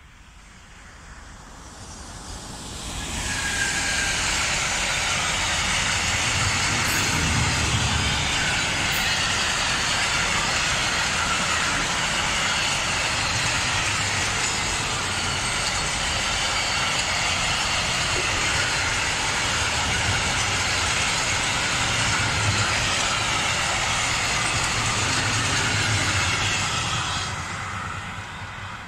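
A freight train of covered wagons passing at speed: the rolling noise of wheels on rail swells over the first three or four seconds, holds steady and loud, then fades near the end as the last wagons draw away.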